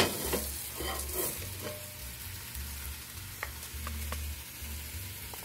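Food sizzling in a hot frying pan on the stove, with a sharp clack right at the start and a few lighter knocks of utensils and plate.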